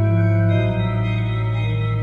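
Pipe organ playing sustained chords over a held low bass note, the upper voices shifting to new notes about half a second in.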